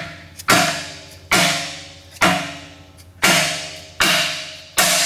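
Hammer blows driving a solid metal subframe bushing into a Nissan 240SX subframe: six strikes a bit under a second apart, each ringing briefly.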